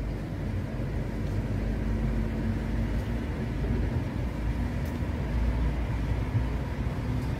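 Steady low rumble of outdoor background noise, with a faint hum and no distinct events.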